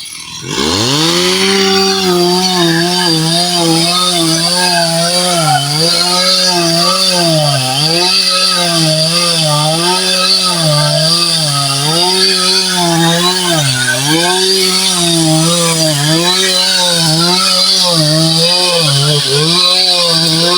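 Two-stroke chainsaw revving up about half a second in, then running at high speed cutting through timber. Its pitch sags briefly about every two seconds as the chain bogs down in the wood.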